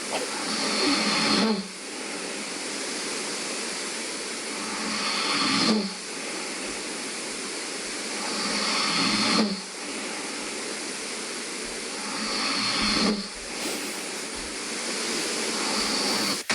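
A man snoring in his sleep: four snores, about one every four seconds. Each swells louder over about a second and then cuts off sharply, over a steady background hiss.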